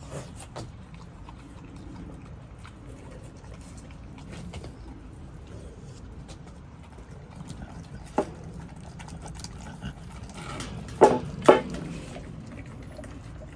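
American Bully dogs eating raw meat from their bowls: steady wet chewing and licking, with a sharp click about eight seconds in and two louder knocks close together near the end.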